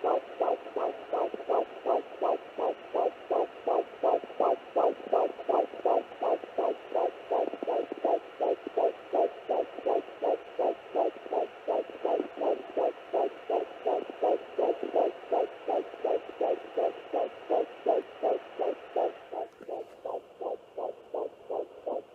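Fetal heartbeat through a handheld fetal Doppler's speaker: rapid, even whooshing pulses, about two to three a second, over a steady hiss that drops away near the end.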